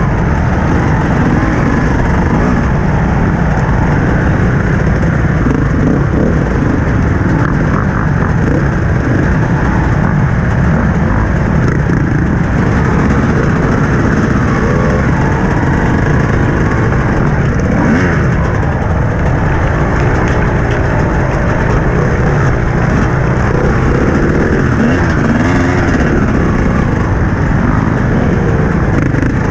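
TM 250 dirt bike engine running and revving up and down at low speed, with other dirt bikes running close by.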